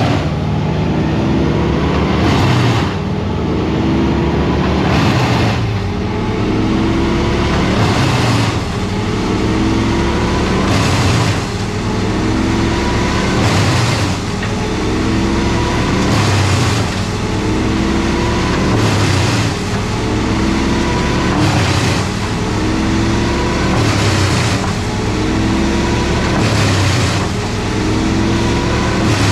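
A heavy engine running under a repeating load, about every three seconds. Each time, its pitch climbs steadily, then breaks off with a short noisy burst and drops back down.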